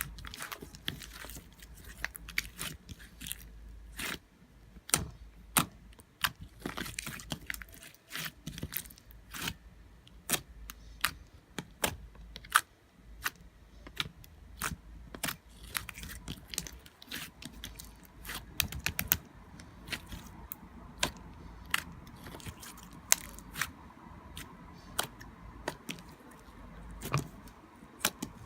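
Slime being played with by hand, making many sharp, irregular clicks and pops.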